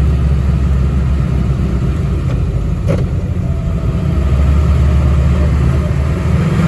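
Steady low engine and road rumble heard inside the cabin of a moving vintage Volkswagen, with a single click about three seconds in.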